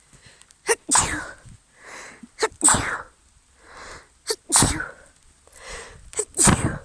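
A woman sneezing four times in a row, about every two seconds, each loud sneeze preceded by an audible breath in.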